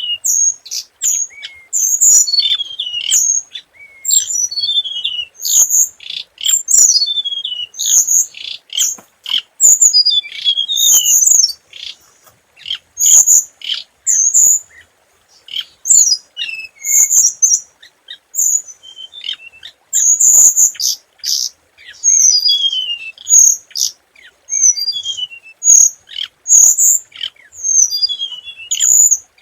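A hồng hạnh songbird singing a lure song: quick runs of sharp, high chirps and short falling trills, with brief pauses between phrases.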